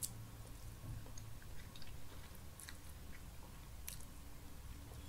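Faint sounds of a person eating ramen noodles, chewing and slurping strands in, with a few soft clicks.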